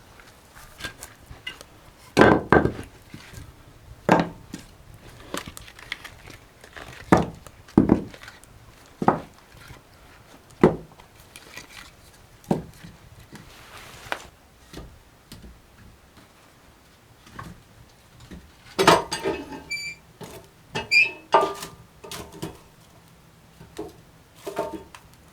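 Irregular wooden knocks and thuds, one every second or two, with a quick run of smaller clattering knocks about three quarters of the way in.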